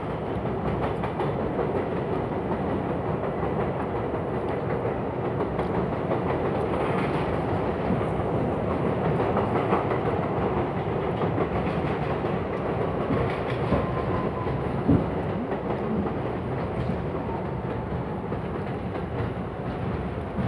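New York City Subway 4 train running along an elevated track, heard from inside the car: a steady rumble of wheels on rail with a clickety-clack over the joints, and one sharper clack about 15 seconds in.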